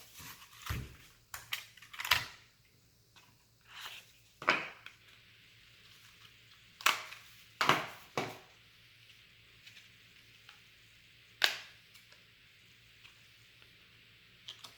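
Scattered knocks, taps and clicks of computer parts and their packaging being handled and set down on a table, about nine separate sounds spread unevenly.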